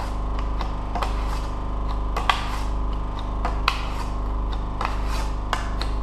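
Plastic spreader scraping and tapping on a mixing board as body filler is worked until it is evenly mixed: a string of short, irregular scrapes and clicks. Under it runs a steady low machine hum.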